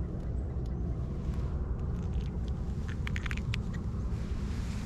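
Steady low wind rumble on the microphone, with a short run of small clicks and crackles about three seconds in as the fish is handled in a towel.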